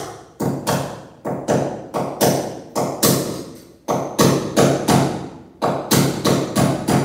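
Claw hammer striking a nail through a metal curtain bracket into the wall: quick repeated blows, about three a second, in runs broken by short pauses.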